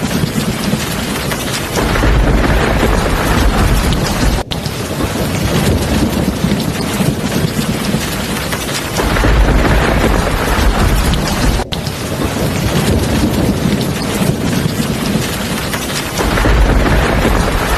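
Heavy rain falling steadily, with deep rumbles of thunder swelling three times. The sound drops out for an instant twice.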